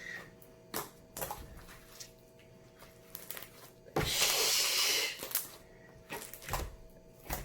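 Homemade glue slime being squeezed and stretched by hand, making scattered short clicks and pops. Around the middle there is a louder rustling noise lasting about a second.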